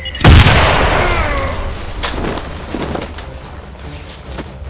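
An explosion sound effect goes off about a quarter second in: a sudden loud blast that dies away over a second or two.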